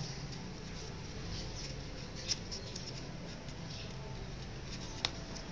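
Sheet of paper rustling and crinkling as it is pinched and folded by hand, with faint scattered crackles and two sharp clicks, about two seconds in and near the end, over a steady low hum.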